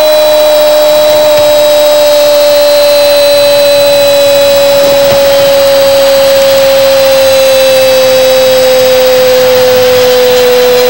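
A television commentator's long held goal cry, one continuous shouted vowel sliding slowly down in pitch as his breath runs out, over faint crowd noise. It celebrates a penalty that has just been scored.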